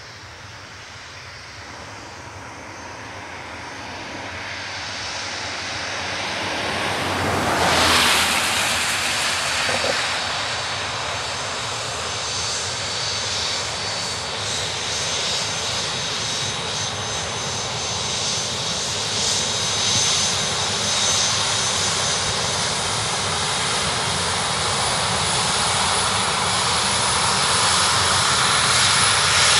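British Airways Boeing 737-400's CFM56 jet engines running, a steady rushing noise with a high whine that grows louder as the airliner comes closer along the runway. There is a loud rushing swell about eight seconds in.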